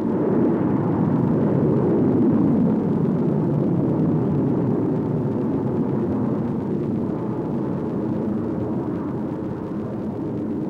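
Rocket engines at liftoff: a loud, rough rushing noise that cuts in suddenly and fades slowly as the rocket climbs away.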